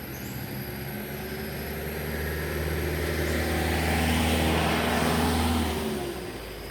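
A motor vehicle passing by: its engine sound grows, is loudest about four to five seconds in, then fades away.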